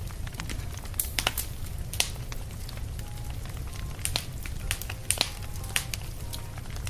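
Wood campfire crackling, with sharp pops scattered irregularly over a steady low rumble.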